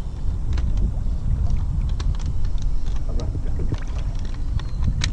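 Steady low rumble of wind and water around a small aluminium fishing boat drifting on the river, with scattered light ticks and splashes against the hull.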